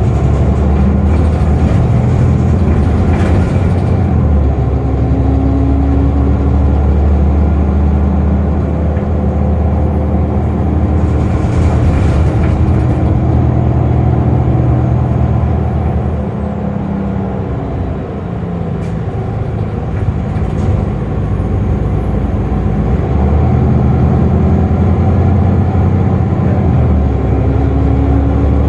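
City transit bus heard from inside while riding: a loud low engine and drivetrain hum whose pitch rises and falls as the bus speeds up and slows, with a thin high whine over it. Partway through the hum eases off as the bus slows, and a couple of sharp clicks follow.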